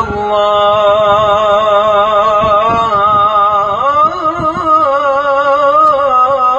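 A man's solo voice singing the Islamic call to prayer (adhan) into a microphone, drawing one word out into a long ornamented melisma. The melody wavers in small turns and climbs to a higher pitch about four seconds in.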